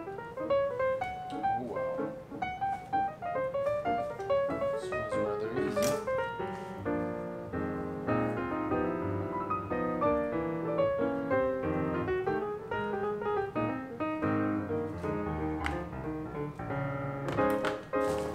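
Background instrumental music led by piano.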